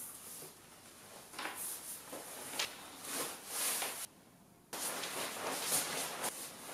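Soft, irregular rustling of a Protest Warrior ski shell jacket's fabric as the arms swing and stretch, with a few louder swishes. The sound drops out to dead silence for about half a second a little past the middle.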